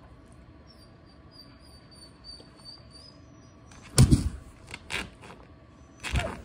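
A faint, thin high-pitched whine from about one to three seconds in. Then, about four seconds in, a loud thump and rustle as a border collie lunges at a person's leg and paws it, followed by a few softer taps and another thump near the end. This is the dog's trained interruption of the person shaking their leg.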